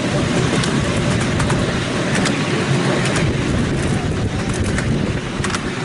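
A ride-on miniature steam railway train running along its track, heard from on board: a steady rumble of the wheels on the rails, with scattered sharp clicks.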